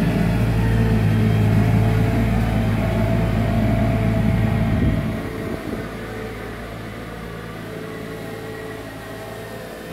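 Kärcher KMR 1700 D ride-on sweeper's Kubota D722 three-cylinder diesel engine running steadily as the machine drives. It is loud at first and drops off about halfway through as the sweeper moves away.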